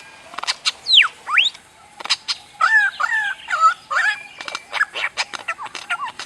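Birds calling: a mix of short sharp chips, a falling and then a rising whistled sweep about a second in, and a run of quick repeated calls in the middle.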